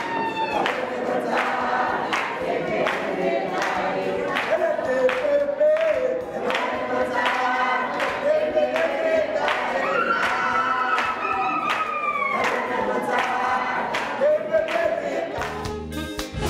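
A group of voices singing a song together over a steady beat of hand clapping.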